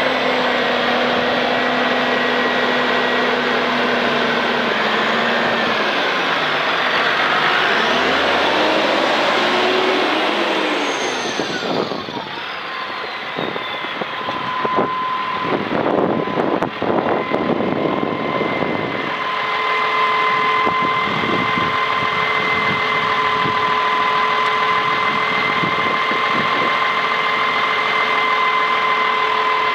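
Massey Ferguson 6180 loader tractor's diesel engine running. Its speed shifts in the first half, then it holds steady with a constant whine.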